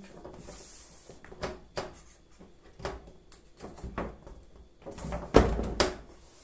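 A dishwasher's lower cover panel being slid under the machine's base and fitted by hand: scattered light knocks and scrapes, with a louder cluster of knocks about five seconds in.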